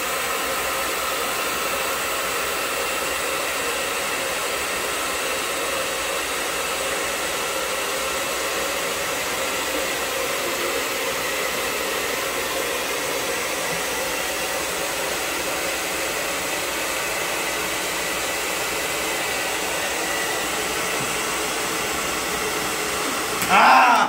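Handheld hair dryer running steadily on its blower, with a faint steady whine over the rush of air. Near the end a man bursts out laughing over it.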